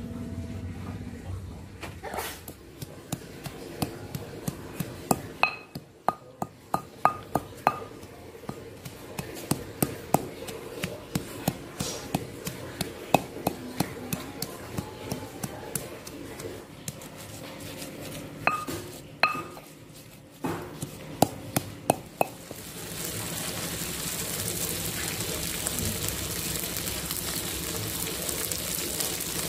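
Stone pestle knocking and grinding in a stone mortar (ulekan and cobek) as a spice paste is crushed, in irregular sharp knocks. About 23 s in, this gives way to a steady sizzle of the paste frying in oil in an aluminium wok.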